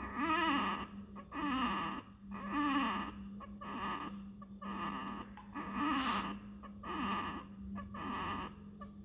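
Newborn baby grunting on each breath out: short voiced grunts, about one a second, over a steady low hum. Expiratory grunting is a sign of respiratory distress in the neonate.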